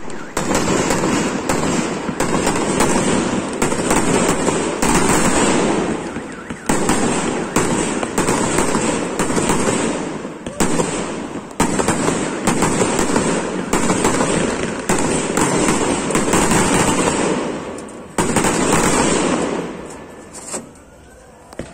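Aerial fireworks display: a dense, continuous barrage of bangs and crackling that swells and eases in waves, dying down near the end.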